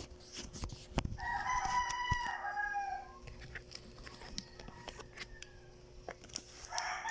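A rooster crowing: one long call of about two seconds, with a second crow starting near the end. Scattered light clicks and taps sound between the crows.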